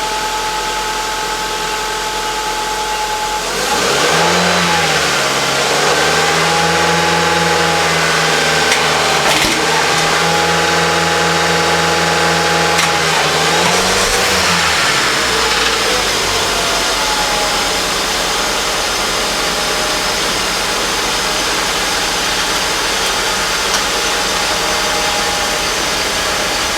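Holden Commodore V6 engine idling, then revved up about four seconds in and held at raised revs for roughly ten seconds before settling back to idle. It is being run up to temperature on a new radiator and fresh coolant.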